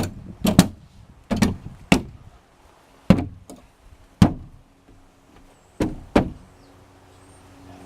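A wooden window-covering board being knocked into place: about nine sharp knocks and bangs at uneven intervals, some in quick pairs.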